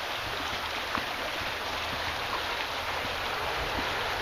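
Creek water flowing, a steady even rush of running water with a faint click about a second in.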